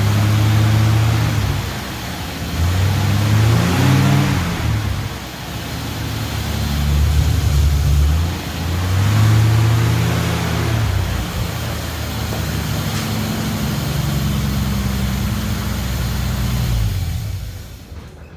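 1964 Dodge D100 pickup's engine running under load as the truck is driven, revs rising and falling several times, then shut off near the end.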